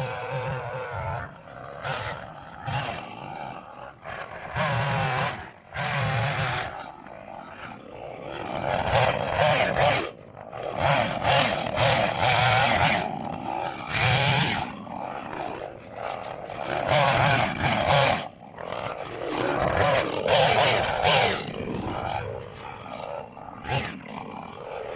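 Husqvarna chainsaw running, revved up and let back down again and again in loud surges.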